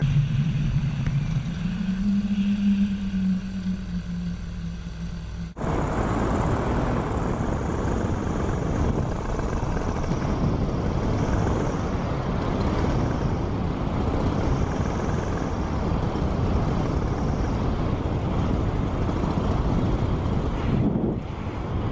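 Paramotor engine and propeller running in flight, a steady tone that rises a little in pitch and holds. About five and a half seconds in, the sound cuts abruptly to a louder, denser rush of engine and wind on the microphone.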